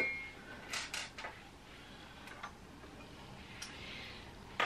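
A ringing metal clink fading away at the start, then a few light clicks and taps of small parts and cleaning tools being handled on the sewing table, with a sharper click at the very end.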